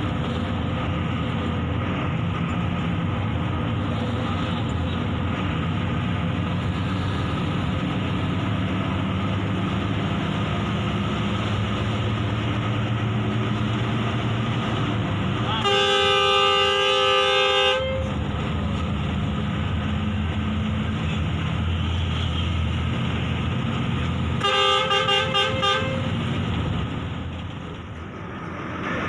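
Bus engine and road noise heard from inside the cab while driving, broken a little past halfway by a two-second blast of a multi-tone horn sounding several notes at once. About 25 s in, the horn sounds again as a quick burst of short toots.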